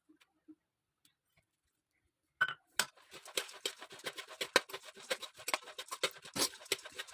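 A spoon stirring and tossing a puffed-rice churmuri mixture in a bowl, with rapid clinks and crisp rustling. It starts suddenly after a couple of quiet seconds.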